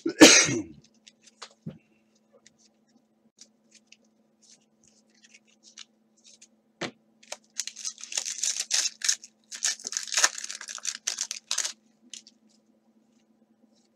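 Trading cards handled and flipped through by hand: card stock sliding and flicking against card stock, dense scratchy rustling for several seconds in the second half, after scattered light clicks. A short loud burst opens it, and a faint steady electrical hum runs underneath.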